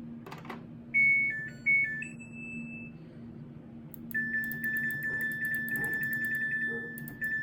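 Samsung washing machine control panel beeping: a short tune of stepped electronic tones about a second in, then one long steady beep from about four seconds, followed by short beeps near the end. A click comes just before the tune, and a low steady hum runs underneath.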